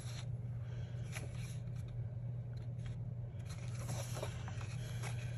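Scrapbook paper rustling and scraping in scattered short rustles as a torn sheet is handled and slid over a planner page, over a steady low hum.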